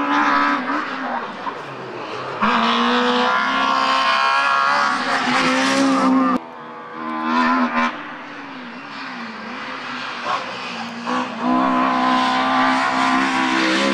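Hill-climb rally cars racing past at full throttle, their engines revving high and held there. The engine pitch drops on gear changes and braking and climbs again, and the sound jumps abruptly between separate passes.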